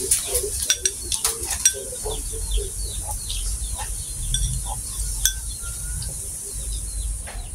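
Metal forks clinking against a glass bowl and a plate as hotdogs are speared and eaten, with a run of sharp clicks in the first second and a half and a few more later, over chewing sounds.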